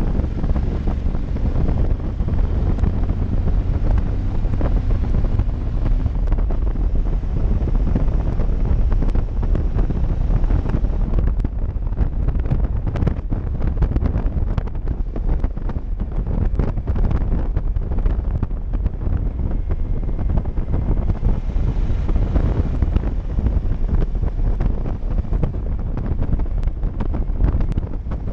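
Wind buffeting the microphone of a motorcycle riding at highway speed: a steady, heavy low rumble of rushing air that covers the bike's engine.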